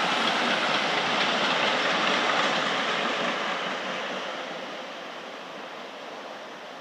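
Three-car light rail train running past on the rails, a steady rush of wheel and rail noise. It fades away steadily from about three seconds in as the train pulls off.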